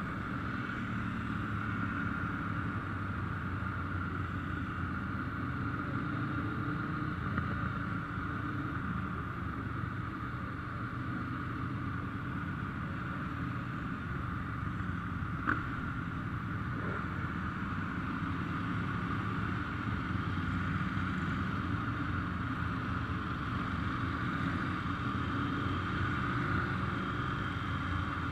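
Many Ducati motorcycle engines running together in a steady low rumble, with one sharp click about halfway through.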